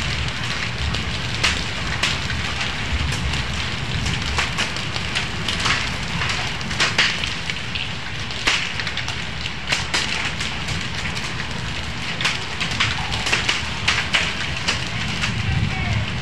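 Hailstones and rain hitting bare ground: a dense, irregular clatter of sharp ticks over a steady hiss, with a low wind rumble on the microphone.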